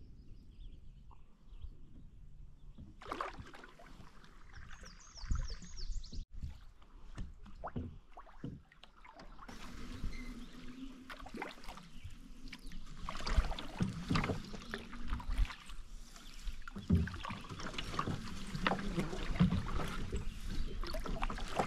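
Canoe paddles dipping and pulling through water, with irregular splashes and knocks. The water noise gets louder and busier over the second half.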